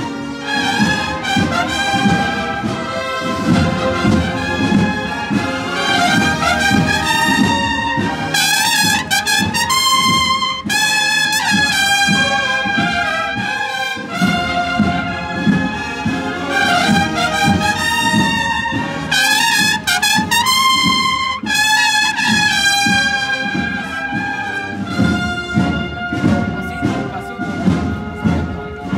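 A marching cornet and drum band playing a processional march: many cornets sound the melody in held, changing notes over drums keeping a steady beat.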